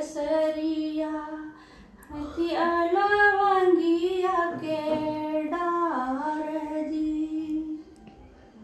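A woman singing a vivah geet, a folk wedding song for the bride, solo and unaccompanied, in long, drawn-out, wavering phrases. She pauses briefly about two seconds in, and the singing stops near the end.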